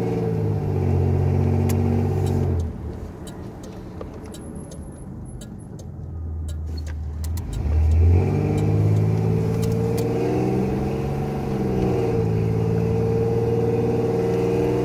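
A Chevrolet 2.8 V6 heard from inside the car's cabin, pulling under throttle, then easing off about two and a half seconds in to a quieter low hum with faint ticking. About eight seconds in it comes back on throttle sharply and pulls again as the automatic transmission is run up through the gears.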